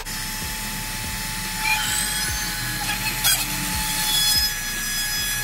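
Cordless rotary cutout tool running at high speed with a steady whine, its spiral bit cutting through the Sea-Doo Spark's plastic hull along a template line.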